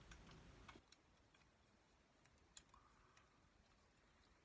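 Near silence with a few faint, scattered plastic clicks from an Easycut 1000 box cutter being handled while a blade is worked into it, the blade held up by something blocking the mechanism.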